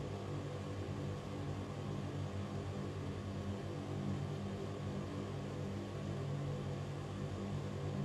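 Ventilation fan running steadily: an even hiss of moving air over a low, constant hum.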